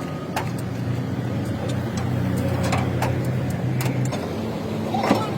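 A motor vehicle's engine running steadily, its hum dropping away about four seconds in, with a few sharp metallic knocks, the loudest near the end.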